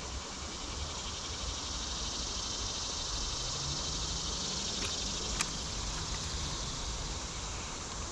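Steady chorus of insects, with a low wind rumble underneath and a couple of small clicks about five seconds in.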